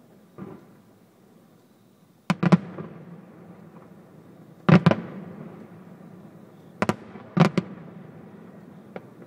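Aerial firework shells bursting: about six sharp bangs, mostly in pairs a couple of seconds apart, each trailing off in a rumbling echo, with a fainter bang near the end.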